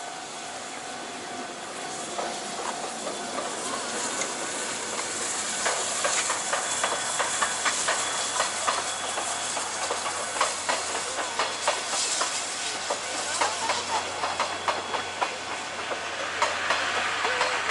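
C58 steam locomotive and its passenger coaches passing: a steady steam hiss that grows louder, with wheels clicking rapidly over the rail joints from about five seconds in.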